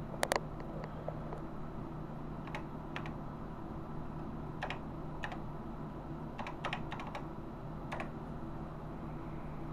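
Keystrokes on a TRS-80 Model III keyboard: separate key presses pecked out one at a time, with a quick run of several a little past halfway and one more near the end, over a steady low hum.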